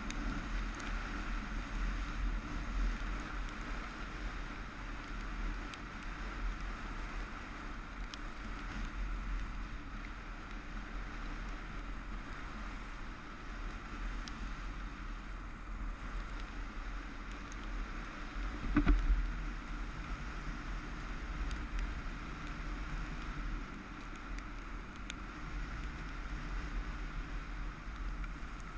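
Motorcycle riding on a gravel road: steady engine and tyre noise under low wind buffeting on the camera microphone, with a single thump about two-thirds of the way through.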